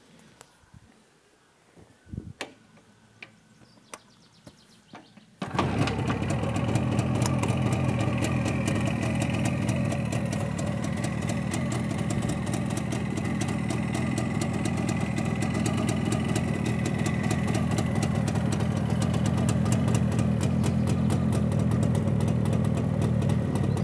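Jawa 350 type 360 motorcycle's two-stroke twin engine on its first start: a few short knocks, then it catches about five seconds in and runs on at a steady idle.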